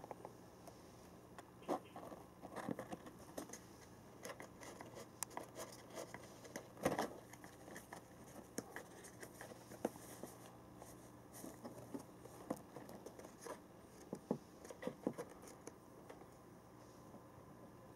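A cat scratching and pawing at a cardboard printer box and the paper packing inside it: faint, irregular scrapes, taps and crinkles, with the loudest scrape about seven seconds in.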